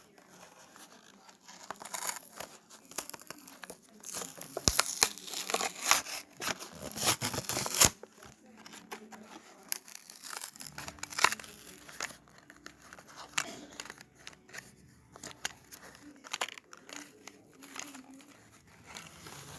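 Hot Wheels blister-card packaging being torn open by hand: cardboard tearing and plastic crinkling, loudest in a dense run of crackling from about four to eight seconds in, then scattered clicks and rustles.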